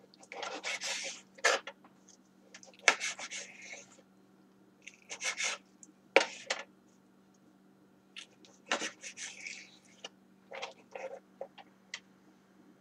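Knife slicing raw chicken breast into strips on a cutting board: irregular scraping strokes with a few sharp taps of the blade on the board, over a faint steady low hum.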